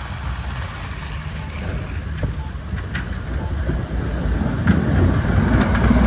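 Low rumble of street traffic with wind noise on the microphone, swelling louder over the last second or so.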